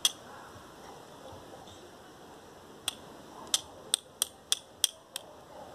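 Steel striker hitting a flint to throw sparks onto char cloth: sharp metallic clicks, one at the start and then, after a pause, a quick run of about seven strikes, roughly three a second.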